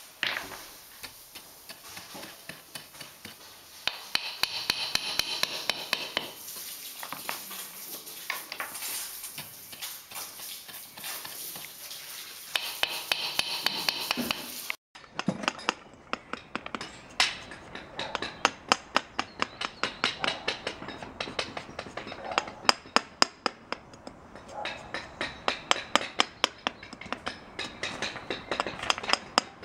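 Paving hammer striking small stone cobbles as they are tapped down into a sand bed and trimmed by hand, in quick repeated sharp clinking taps. The strikes come faster and louder in the second half, after a brief dropout.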